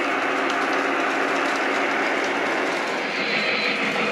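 Lionel O-gauge model train rolling on three-rail track: a steady rumble and hiss of wheels on rail, with a higher hiss coming in about three seconds in.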